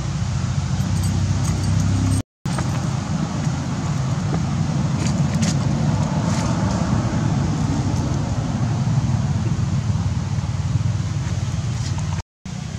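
Steady low rumbling background noise that drops out abruptly twice, a couple of seconds in and near the end.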